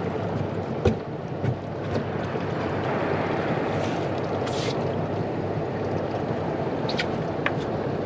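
Steady wind on the microphone and water around a small fishing boat, with a few light clicks and knocks and a brief hiss about halfway through.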